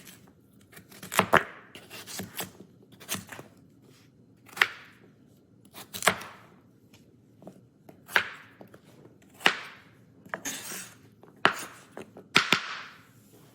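Kitchen knife cutting russet potatoes on a cutting board: slow, irregular cuts, about one a second, each a sharp knock of the blade hitting the board.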